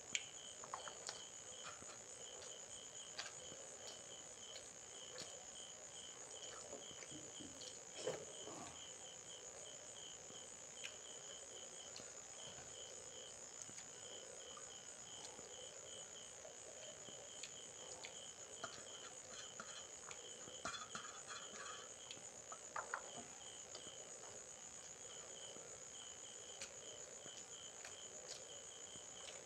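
Faint crickets chirping steadily: a continuous high trill with a lower chirp repeating a couple of times a second. Now and then soft clicks and taps of fingers and rice against a steel plate.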